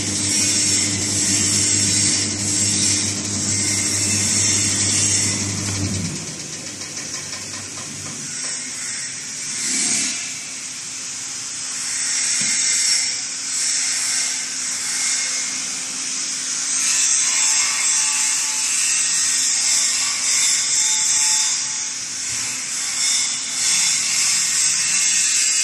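Mini cable granulator's electric motors running during shutdown: a low hum stops abruptly about six seconds in as one drive is switched off, while a high hiss carries on.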